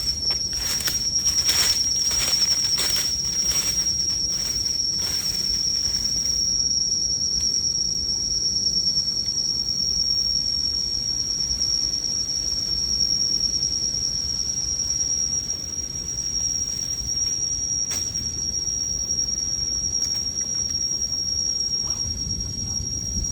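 Insects droning in the rainforest, one steady high-pitched tone held throughout, with a series of sharp knocks in the first six seconds.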